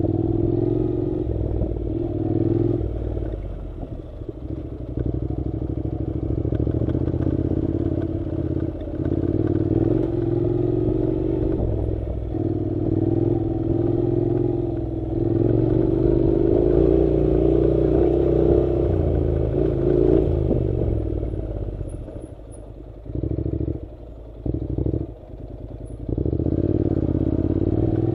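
Honda NC700's parallel-twin engine running as the motorcycle rides a dirt road, its note rising and falling with the throttle. Near the end the sound drops away briefly a few times as the throttle closes, then picks up again.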